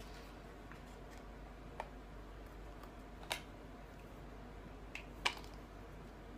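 Four short, sharp plastic clicks from a makeup base bottle and its cap being handled, the last two close together, over faint steady room hum.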